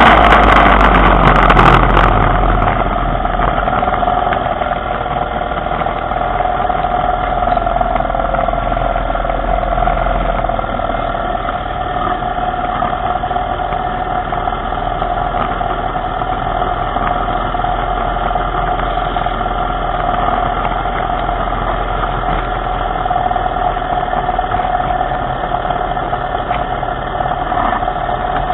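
A small engine idling steadily, with a continuous mid-pitched hum.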